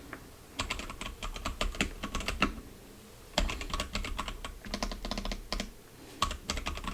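Typing on a DURGOD K710 mechanical keyboard with tactile brown switches: quick runs of key clicks in three bursts, with short pauses between.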